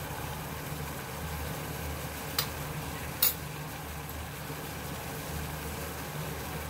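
A pot of water at a rolling boil on a gas burner: a steady low rumble with bubbling. Two short sharp clicks come about a second apart near the middle.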